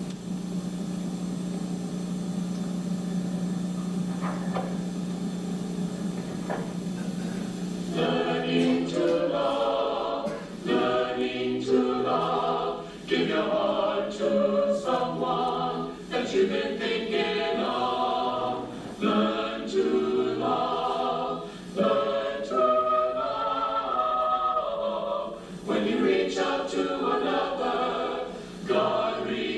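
A steady electrical hum, then from about eight seconds in a vocal group singing the film's closing theme song.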